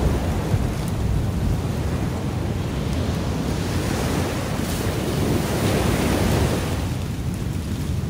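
Ocean surf washing onto the shore in a steady rush, recorded on a phone with wind buffeting its microphone. The wash swells a little about six seconds in, then eases off.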